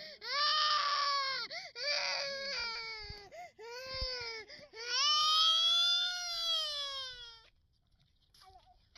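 A young child crying in a string of high-pitched wails: several short cries, then one long drawn-out wail that rises and falls in pitch, stopping near the end.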